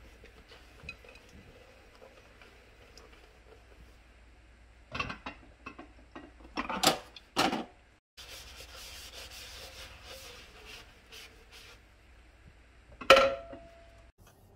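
Dishes being hand-washed in a stainless steel sink: a sponge scrubbing glass and plates, with clattering knocks of dishes about five to seven seconds in and a sharp clink that rings briefly near the end.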